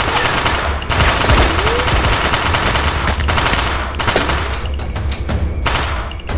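Several long bursts of rapid automatic gunfire, as film sound effects, with short breaks between the bursts, over background music.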